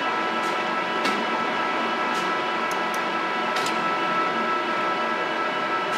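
Lansing hollow-spindle engine lathe running: a steady whine from its gearing, with a few light clicks scattered through.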